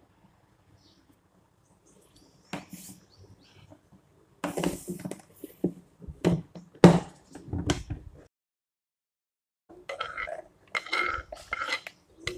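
Knocks and scrapes of a wooden cutting board being handled on a stone counter, with diced pieces being scraped off it and dropping into a bowl, in two spells of clatter with a short break between.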